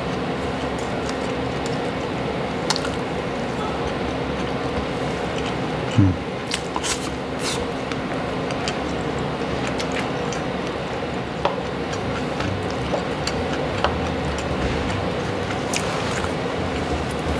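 Close-up chewing and eating sounds: wet, squishy mouthfuls and light clicks of wooden chopsticks. Under them runs a steady humming background noise that the eater puts down to construction work outside. A single sharp knock comes about six seconds in.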